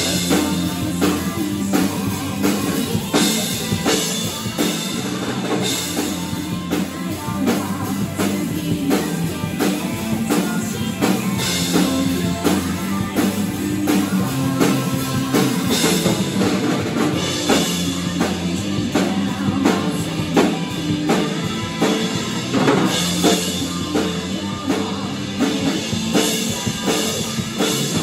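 Tama drum kit played live: bass drum and snare in a steady beat with repeated cymbal crashes, over backing music with a sustained low bass line.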